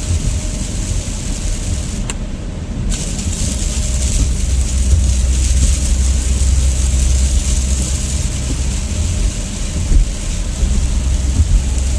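Car interior on a wet highway: the steady low rumble of tyres and engine under the hiss of rain and spray on the car. The hiss cuts out for about a second a couple of seconds in, then returns.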